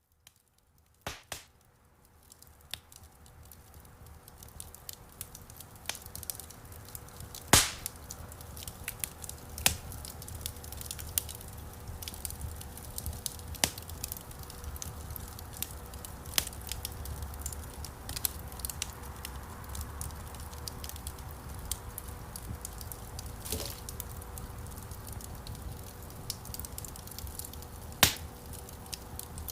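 Wood campfire burning, crackling steadily with sharp pops every few seconds. It fades in from silence over the first few seconds.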